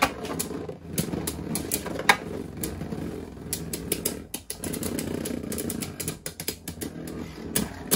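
Two Beyblade Burst tops, Vanish Fafnir and Whirl Helios, spinning in a plastic stadium. Their tips make a steady whirring on the floor, broken by many sharp, irregular clicking hits as the tops collide and glance off each other.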